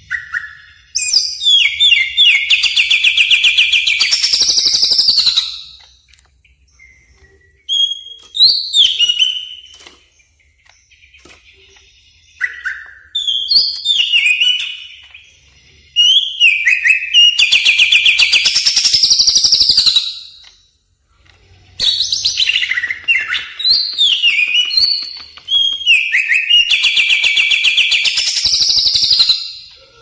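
Cucak ijo (greater green leafbird) singing loudly in long phrases of fast rattling trills and swooping notes, with brief pauses between phrases.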